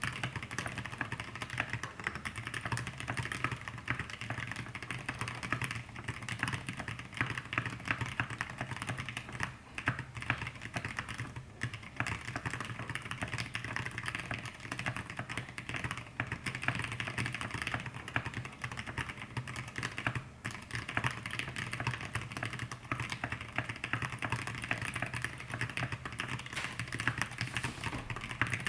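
Rapid, continuous typing on an E6-V2 mechanical keyboard with an aluminium plate, lubed Zealios 65g v2 tactile switches and thick KAT Alpha PBT keycaps. The keystrokes run densely, with a few brief pauses along the way.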